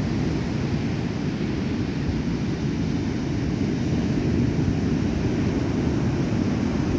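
Stormy sea surf: waves breaking and rolling in as a steady low rumble, with wind buffeting the microphone.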